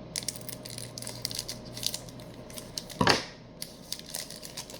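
Scissors cutting into the plastic packaging of a trading-card deck box: small clicks and rustling, with one louder sharp snap about three seconds in.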